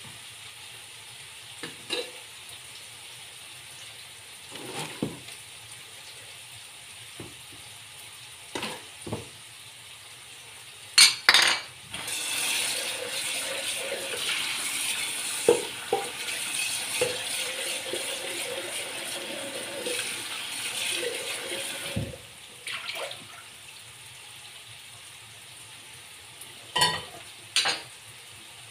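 Kitchen work over a faint, steady sizzle from a frying pan on a gas burner: sharp clinks and knocks of dishes and utensils, and, from about twelve seconds in, tap water running at the sink for about ten seconds.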